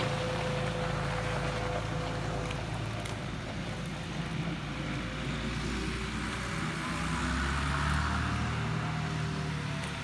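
John Deere farm tractor's diesel engine running steadily as the tractor drives, growing a little louder for a couple of seconds about seven seconds in.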